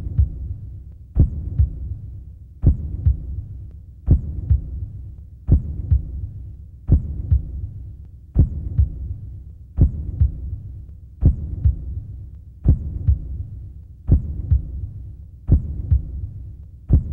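Slow heartbeat sound: a deep double thump, a strong beat followed by a weaker one, repeating steadily about once every second and a half.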